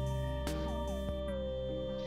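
Slow instrumental background music: sustained notes over a low steady bed, with notes that slide down in pitch about half a second and a second and a half in.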